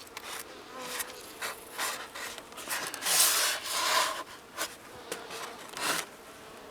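Insulation wrap and tape being handled and pressed against a wooden beehive: scattered rubbing and scraping, with one longer rasping noise about three seconds in. Honeybees hum faintly underneath.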